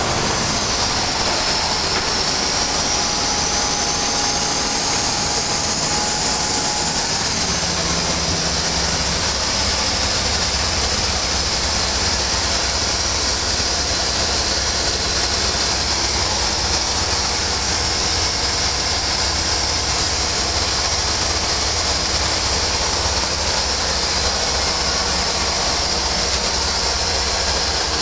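Sealine SC29 motor cruiser under way, heard from the helm: the steady drone of its Volvo Penta engine under a continuous rush of wind and water, holding a constant level throughout.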